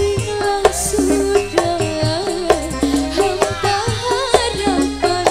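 Live dangdut band music played loud through a stage sound system: a hand drum beats under a gliding melody line, over sustained deep bass notes.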